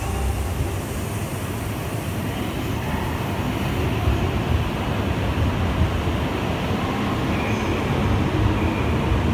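Hayabusa Shinkansen bullet train pulling out of the station, its cars running past the platform with a steady low rumble that grows slightly louder.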